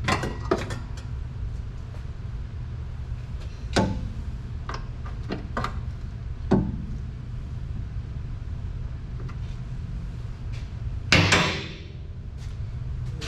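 Scattered sharp metal knocks and clinks from hand tools and sockets on the car's bolts, over a steady low hum, with one louder, rougher burst of about half a second near the end.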